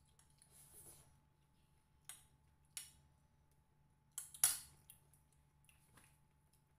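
Eating-by-hand noises: fingers picking at rice and food on plates, heard as a few short crackles and rustles. The loudest comes about four and a half seconds in.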